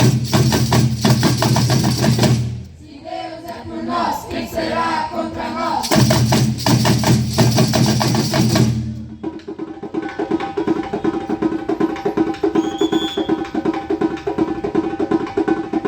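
Music with percussion: full, bass-heavy passages at the start and again in the middle, then from about nine seconds a lighter section of sustained notes over a quick, steady tapping beat.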